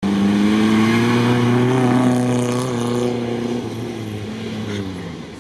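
Lada Niva off-road vehicle's engine pulling under throttle on a dirt track. Its note climbs a little for the first two seconds, then holds and fades away.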